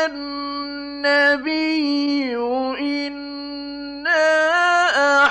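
A man chanting Quran recitation in long, drawn-out melodic notes with small turns in pitch; the voice grows louder about four seconds in.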